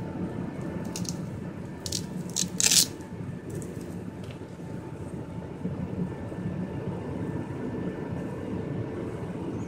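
Hands handling airsoft goggles and their cord: rustling and a few sharp clicks in the first three seconds, the loudest near three seconds in, over a steady low hum.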